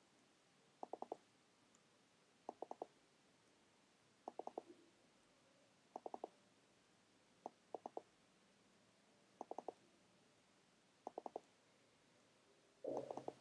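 Soft clicks from a computer mouse and keyboard during code editing, coming in quick groups of three about every second and a half to two seconds, one group for each line edited. Otherwise near silence.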